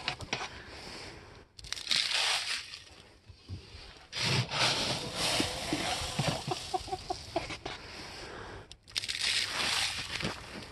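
Dry chicken feed rustling and pouring as a plastic scoop digs into it in a metal trash can and tips it into a plastic container, several scoops in a row.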